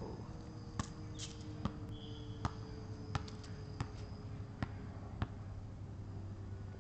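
Basketball dribbled on an asphalt court: seven sharp bounces, about one every three-quarters of a second, stopping about five seconds in.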